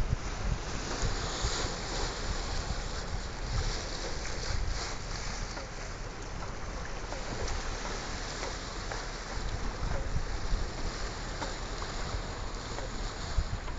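Small sea waves washing and breaking over shoreline rocks, with wind buffeting the microphone in uneven low gusts.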